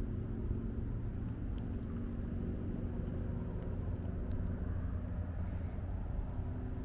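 Steady low rumble of wind buffeting the microphone outdoors, with a few faint ticks.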